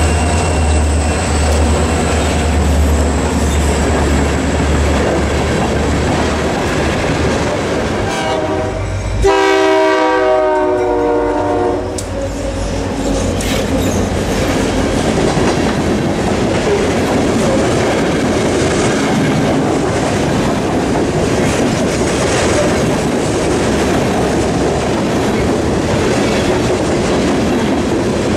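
EMD SD40-2 and SD38 diesel locomotives passing close by with a deep engine rumble, then a locomotive horn sounding for about three seconds. After that, a long string of coal hopper cars rolls past with steady wheel clatter on the rails.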